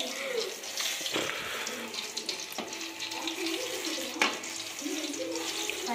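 Banana bajjis deep-frying in hot oil in an aluminium kadai, a steady sizzling hiss. Two sharp metal clicks, about a second in and about four seconds in, as the wire skimmer knocks the pan.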